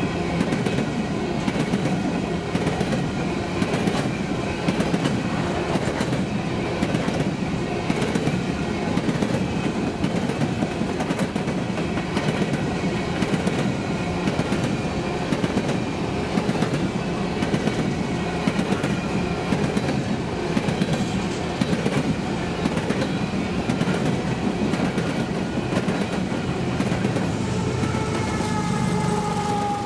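Freight train of coal hopper cars rolling past, the steel wheels clacking over the rails in a steady rhythm under a continuous rumble. Near the end a steady pitched tone comes in.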